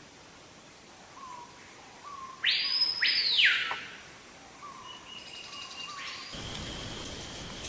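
Bird calls: two loud calls, each sweeping up high and falling back, about two and a half seconds in, with short, softer low notes around them. A steady high-pitched tone comes in near the end.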